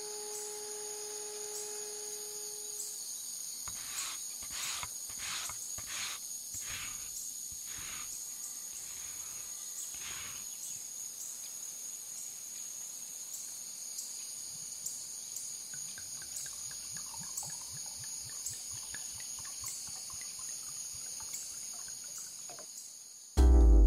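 Butcher's block oil trickling from a plastic jug onto an end-grain wooden cutting board near the end, over a steady high-pitched background whine. Earlier comes a run of about ten soft strokes, roughly two a second.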